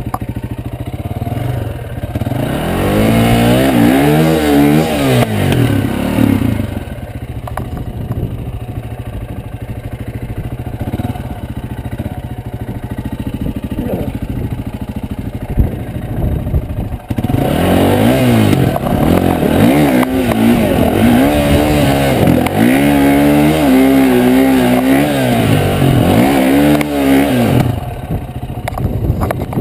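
Off-road motorcycle engine running at idle, revved in two spells of repeated rising-and-falling throttle blips while the bike is clutched over boulders: a short spell about two seconds in, and a longer one from just past halfway until near the end.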